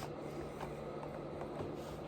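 A person quietly chewing food, with a few soft mouth clicks over a steady low hum.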